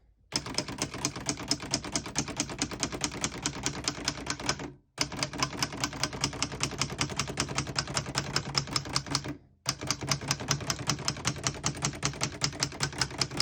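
Typing on a 1959 Hermes Rocket portable manual typewriter: rapid, even keystrokes, several a second, in three long runs with two short pauses. The typebars strike the platen steadily.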